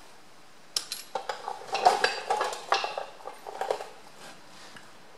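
Loose steel nuts and washers clinking and rattling against each other: a quick run of sharp metallic clinks starting about a second in and lasting about three seconds.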